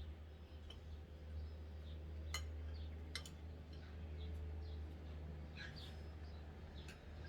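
Short high-pitched chirps from small creatures, repeating irregularly over a steady low hum, with two sharp clicks about two and three seconds in.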